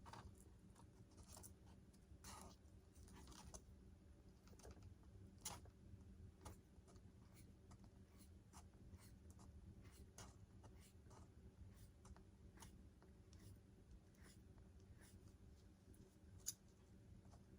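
Near silence: a low steady room hum with scattered faint clicks and ticks of small parts and wire leads being handled, two of them a little sharper, about five seconds in and near the end.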